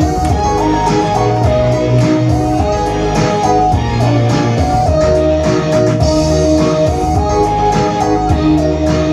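Instrumental background music: a guitar-led tune with a melody that steps between held notes over a bass line and a steady beat.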